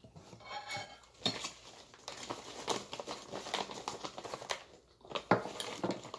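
Clear plastic bag crinkling and rustling as it is picked up and handled, with a few sharp clicks near the end as it is set back down.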